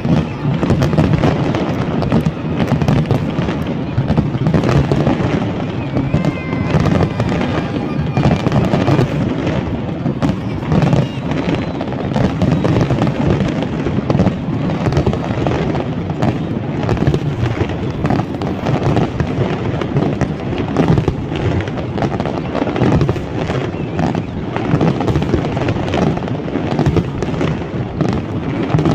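Big fireworks display: a continuous barrage of shells bursting, rapid cracks and crackling over low booms with no let-up.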